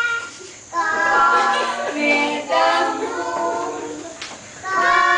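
Young children singing a song together without accompaniment, with a woman's voice singing along; the phrases break off briefly about half a second in and again near the end.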